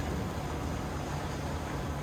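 2022 Peterbilt 389 semi truck's diesel engine running with a steady low rumble under an even hiss of wind and road noise.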